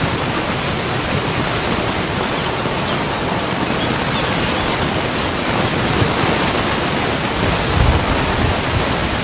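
Steady, even rushing hiss with a brief low rumble near the end.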